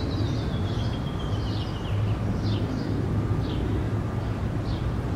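Steady low rumble of road traffic, with small birds chirping in short high calls repeating about once a second. A thin high tone glides slowly down over the first two seconds.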